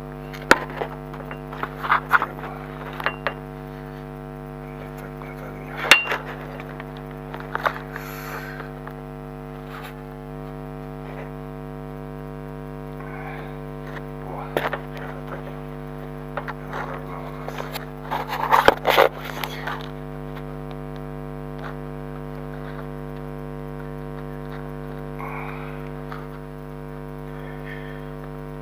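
Hammer blows on steel at the front anti-roll bar link of a Renault Logan, a few scattered knocks with the sharpest about six seconds in and a quick cluster about two-thirds of the way through. A steady electrical hum runs underneath.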